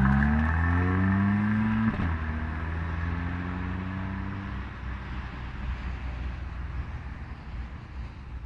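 Mercedes CLA45 AMG's turbocharged 2.0-litre four-cylinder accelerating hard, its pitch rising, with a sudden upshift about two seconds in. The engine note then fades away under wind noise.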